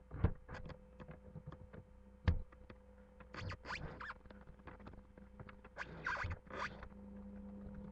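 Two light knocks and a few short scratchy rustles from things being handled close to the microphone, over a steady low electrical hum.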